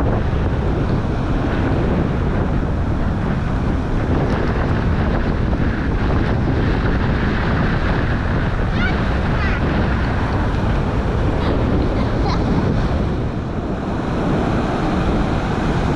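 Storm surf pounding the seashore in a steady rush of breaking waves, with wind buffeting the microphone.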